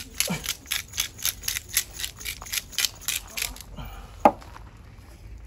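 A rapid, even series of sharp clicks, about four or five a second, that stops about three and a half seconds in, followed by one louder click.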